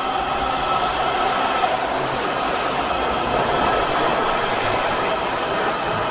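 Washington Metro subway train running along a station platform: a steady rolling rumble with a constant whine. A high hiss swells and fades about once a second.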